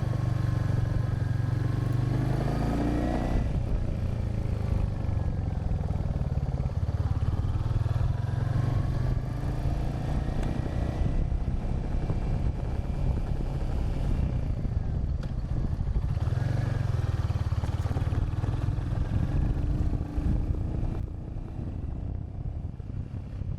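Royal Enfield Hunter 350's single-cylinder engine riding away, its pitch rising and dropping several times through the gears, under heavy wind buffeting on an unshielded action-camera microphone. Near the end the engine fades back and the wind rumble dominates.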